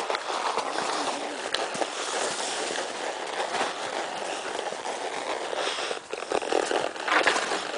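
A Tennessee Walking Horse walking up a rutted dirt trail: hooves scuffing and clicking on dirt and leaf litter over a steady rustling noise, with a louder patch of scuffs near the end.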